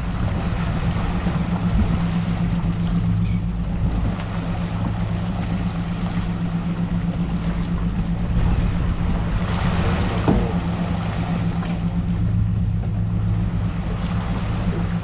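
Suzuki outboard motor running steadily at trolling speed, a low even hum, over the rush of wake water and wind.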